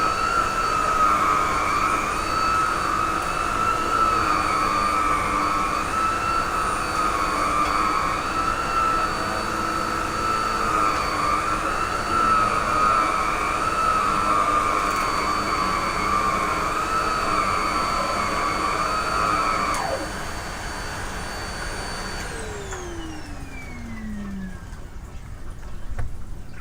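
TriStar MG1 canister vacuum cleaner running with a steady, slightly wavering whine. About two-thirds of the way in, the whine cuts out, and the motor winds down with a falling pitch. A small thump comes near the end.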